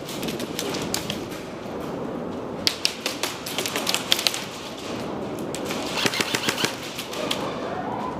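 Airsoft guns firing indoors: a scatter of sharp shots for about two seconds from near three seconds in, then a quick burst of about eight rapid shots just after six seconds.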